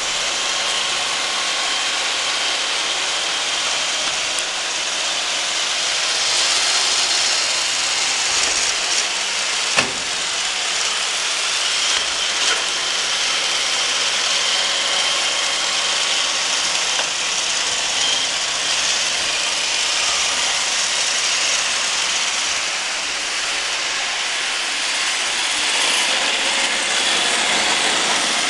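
Roomba robot vacuum cleaners running: a steady whir of vacuum motors and spinning brushes, with one sharp click about ten seconds in.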